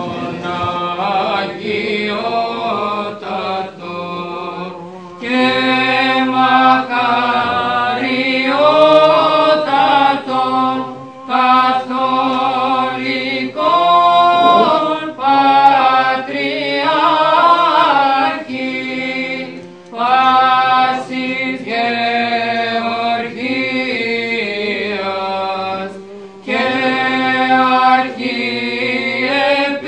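Choir singing unaccompanied Orthodox church chant. It moves in phrases of long held notes that break off every several seconds.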